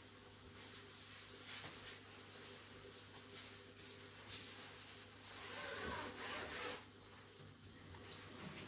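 Rubber-gloved hands wiping and scrubbing a kitchen countertop with a cloth: intermittent rubbing strokes, with a louder stretch of scrubbing about five to seven seconds in, over a faint steady hum.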